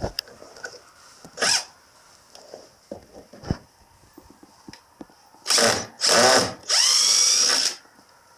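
Cordless drill/driver running in short bursts, driving a screw into a wooden 2x4 frame: a brief run about a second and a half in, then three longer runs close together near the end, the last one rising in pitch as the motor spins up and then holding steady.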